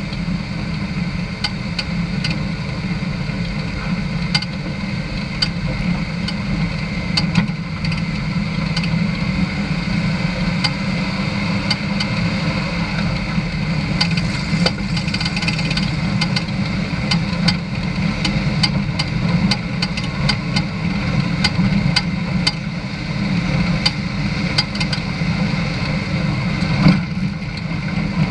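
Vehicle driving along a gravel dirt road: steady engine and road noise with a heavy low rumble and frequent short sharp clicks and rattles.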